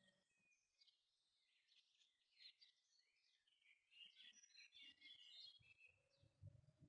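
Faint birdsong from several small birds: short chirps and twitters, busiest in the second half, with a low rumble coming up near the end.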